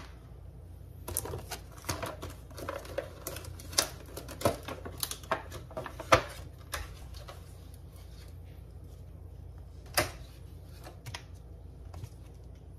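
Clear plastic clamshell container of salad greens being opened and handled: a run of crackles and clicks for several seconds, then one sharp click later on, over a steady low hum.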